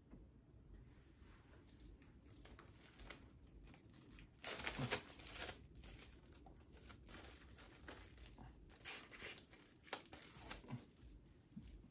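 Faint crinkling and tearing of plastic shrink wrap as a Blu-ray SteelBook is unwrapped by hand, with the loudest rustle about halfway through.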